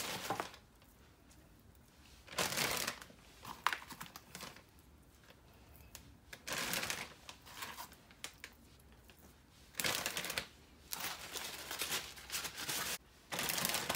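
Zip-top plastic bag and paper towel crinkling and rustling in several short, irregular bursts, with quiet pauses between, as raw chicken drumsticks are patted dry and dropped into the bag.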